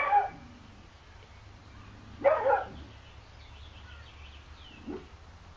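A dog barks twice, about two seconds apart, followed by a fainter short sound near the end.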